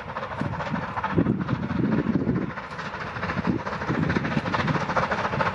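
Steam locomotive working hard at the head of a passenger train, its exhaust beats coming about twice a second and growing louder as it approaches.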